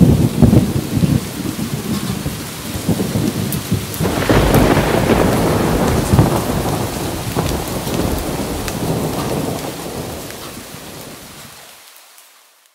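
Thunderstorm: thunder rumbling over steady rain, with one long roll at the start and a second swelling about four seconds in, then the whole fades out near the end.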